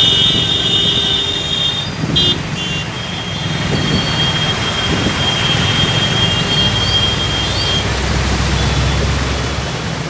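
Road traffic noise: vehicle engines running and passing, with a thin, high, steady tone lasting several seconds in the middle.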